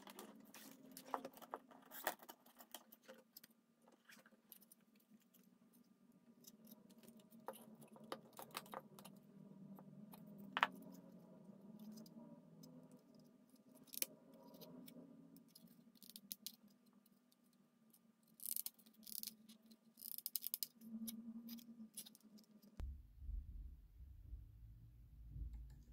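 Scattered clicks, taps and scraping of the plastic housing and parts of a Panasonic RC-70 clock radio being handled during disassembly, over a steady low hum. The sharpest clicks come about two, ten and fourteen seconds in, with a run of rustling and scraping a few seconds before the end.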